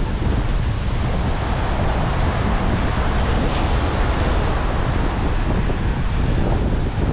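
Wind buffeting the microphone with a heavy rumble, over the steady wash of surf breaking on a sandy beach.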